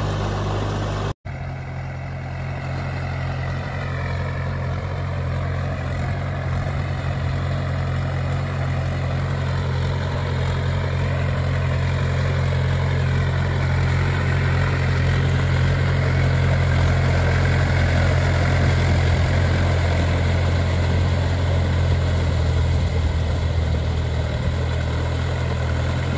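Mahindra 575 DI tractor's diesel engine running steadily as it drives its cage wheels through a flooded paddy field. There is a brief dropout about a second in. The sound grows gradually louder toward the middle, then eases slightly near the end.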